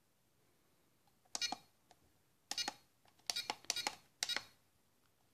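Radiolink RC4G transmitter's keys beeping as its buttons are pressed to move through the menus: several short, high beeps at uneven intervals, a few of them in quick succession in the middle.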